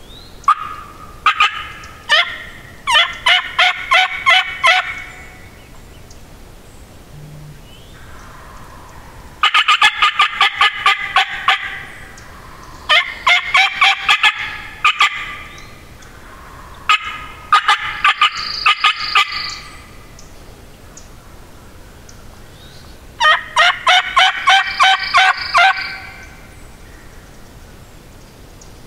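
Wild turkey gobbler gobbling, loud and close: several rapid, fast-pulsed gobbles about every few seconds, a cluster of them near the start and more later on. This is the spring gobbling of a tom turkey.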